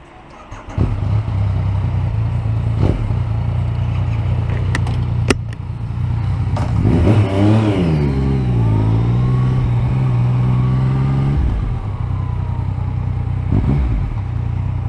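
Motorcycle engine starting about a second in and then idling. Around the middle it is revved once, rising and falling in pitch, and held at a steady higher speed for a few seconds before dropping back, with a few sharp clicks along the way.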